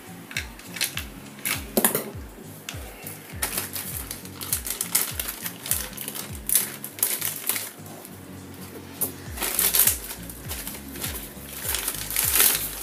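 A plastic mailer envelope being cut and torn open by hand, with irregular crinkles and clicks of the plastic, the loudest about two seconds in, around two-thirds through and near the end. Background music with a steady low beat runs underneath.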